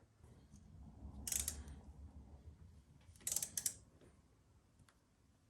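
Two short bursts of metallic clicking and rattling, about a second and three seconds in, over a low rumble: a motorcycle heel shifter and its shift linkage being worked by hand.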